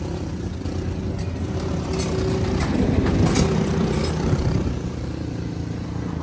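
Motorcycle engine running while riding, a steady drone that grows louder for a couple of seconds in the middle and then eases back.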